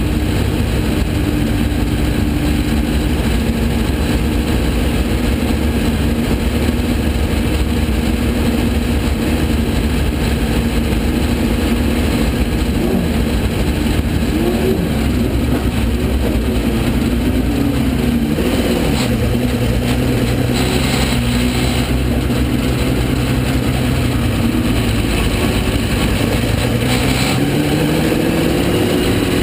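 Porsche 917K race car's air-cooled flat-twelve engine at speed, heard onboard. Its revs rise and drop several times through the middle, then climb steadily near the end as the car accelerates.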